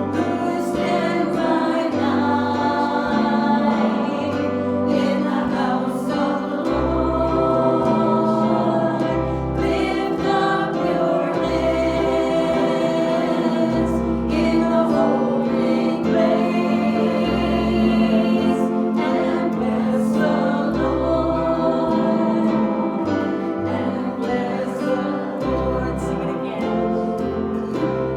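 Gospel worship song: a group of voices singing together with instrumental accompaniment, held low bass notes changing every second or so beneath the singing.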